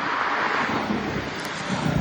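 Wind rushing over the microphone of a moving bicycle, a steady hiss with low gusty rumbles near the end.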